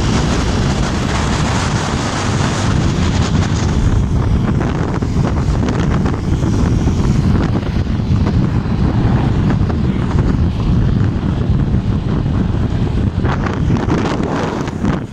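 Wind buffeting the microphone of a phone carried on a moving motorcycle: a loud, steady rumbling rush that covers the sound of the ride.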